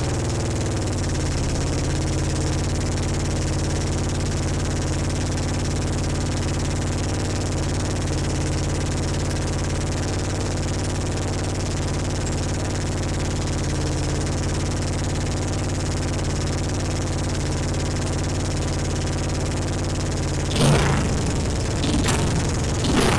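1983 Honda ATC200E Big Red's single-cylinder four-stroke engine idling steadily through an aftermarket CRF230 exhaust. Near the end a few sharp, loud bangs break over the idle.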